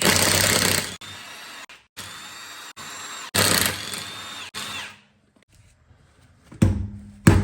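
Impact wrench loosening a car wheel's lug nuts: two loud bursts of hammering, each trailing into a lighter whirr with a thin whine as the tool spins. Music with a drumbeat comes in near the end.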